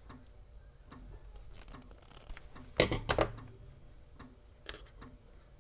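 Wire strippers taking the insulation off a thin conductor inside an XLR cable: handling noise and a couple of sharp clicks about three seconds in, with another small click near the end.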